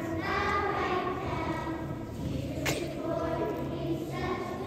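Young children's choir singing together, with one short sharp click a little past halfway through.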